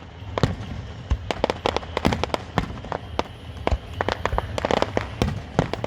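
Fireworks going off: a rapid, irregular string of sharp bangs and cracks, many close together.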